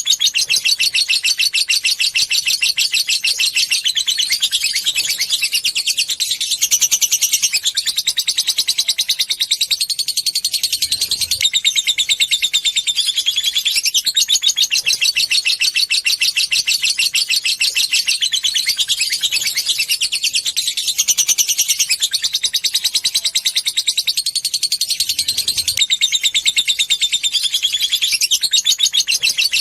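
Lovebird chattering in a long, unbroken run of very rapid, high notes, the 'ngekek panjang' song prized by keepers, changing phrase every few seconds without a pause.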